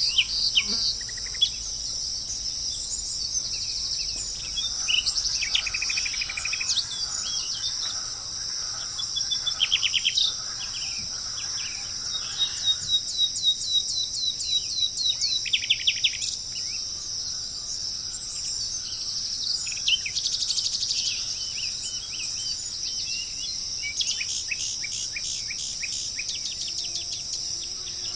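Songbirds singing in short phrases of quick, rapidly repeated high notes, several times over, above a steady high-pitched chorus of insects.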